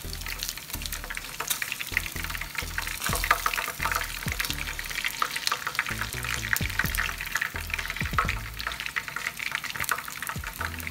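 Hot oil sizzling and crackling in a frying pan as fried chicken pieces are lifted out with tongs, over background music.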